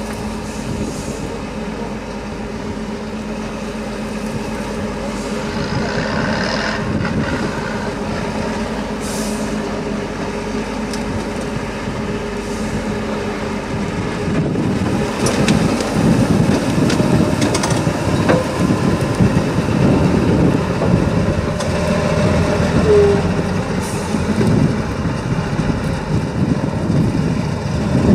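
Tatra 813 8x8 trial truck's diesel engine running under load on a steep bank, getting louder and rougher about halfway through.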